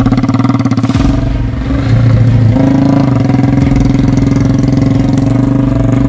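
Three-wheeled motorcycle's single-cylinder Yamaha MX engine running loudly. It pulses roughly for the first second, then settles into steadier running, its pitch shifting slightly a couple of times.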